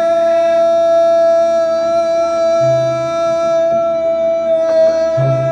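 Male singer holding one long, steady note at the end of a line, over live band accompaniment with a few low bass notes.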